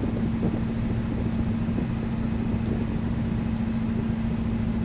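Car driving at road speed, heard from inside the cabin: a steady engine and tyre rumble with a constant low hum.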